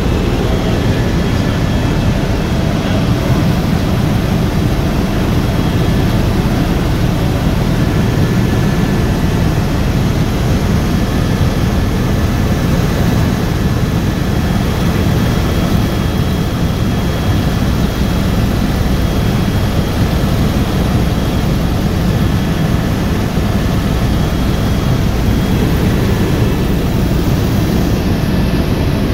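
Helicopter in cruise flight heard from inside the cabin: a loud, steady rumble of engine and rotor with a faint high whine above it.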